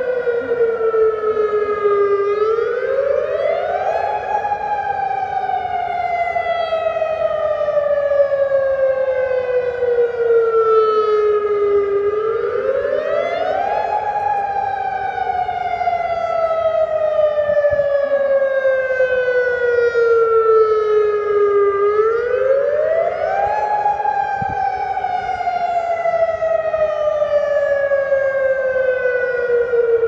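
Emergency alert siren wailing. The tone rises quickly, then falls slowly over several seconds, and the cycle repeats about every ten seconds, three times.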